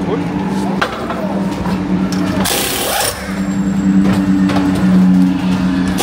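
Racing pit-stop wheel change on a GT3 car: a steady hum with a short, sharp hiss about two and a half seconds in, as the crew works the wheels with pneumatic equipment.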